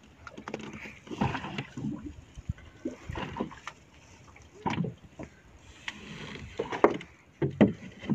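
Sea water slapping and sloshing against the hull of a small open fishing boat in irregular surges, with a few light knocks.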